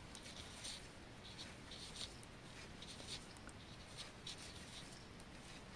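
Faint, irregular clicking and scraping of a pair of size 3 mm knitting needles working stitches in garter stitch.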